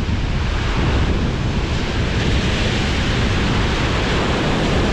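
Sea surf breaking and washing over the rocks below, a steady rushing hiss that swells a little midway, with wind buffeting the microphone.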